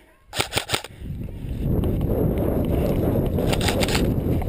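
A quick string of about four sharp airsoft gun shots, then a loud rough rumbling on the microphone that runs for several seconds, with a few fainter snaps in it.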